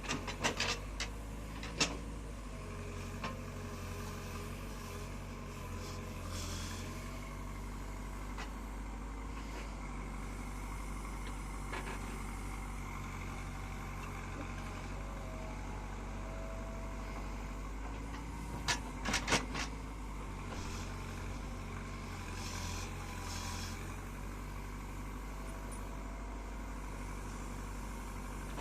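Diesel engine of a heavy machine running steadily at a low, even drone, with a few sharp metallic knocks near the start and a short cluster of them about two-thirds of the way through.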